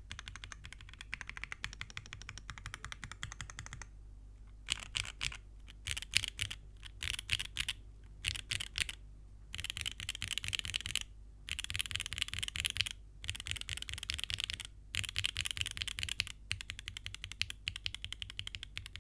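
Typing on a Mode SixtyFive 2024 custom keyboard with lubed, filmed Gateron Milky Yellow Pro linear switches in an aluminium plate and GMK keycaps. Fast continuous keystrokes at first, then from about four seconds in, bursts of typing broken by short pauses.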